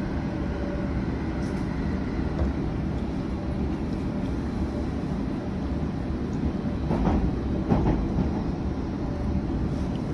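London Underground S Stock train running, heard from inside the carriage: a steady low rumble of wheels on track. Two brief clunks come about two-thirds of the way through.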